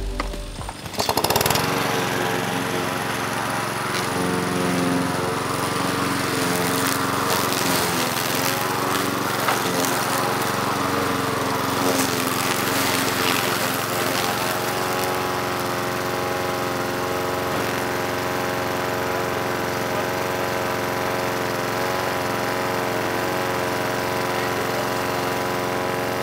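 Petrol walk-behind rotary lawn mower engine running steadily at a constant speed, coming in loudly about a second in.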